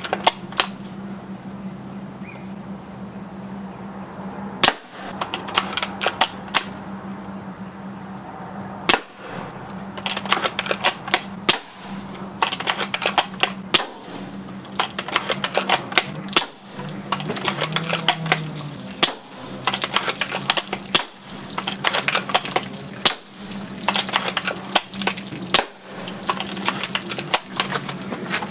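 Maruzen L96 bolt-action spring airsoft sniper rifle firing repeatedly: about ten sharp shots two to three seconds apart, with rapid clicking between them, over a steady low hum.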